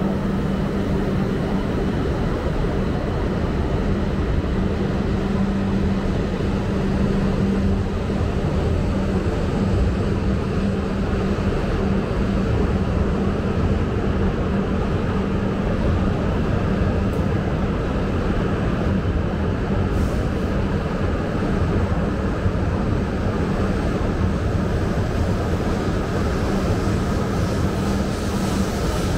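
E5-series Shinkansen train moving past along the platform: a steady running hum with a constant low tone under an even rushing noise.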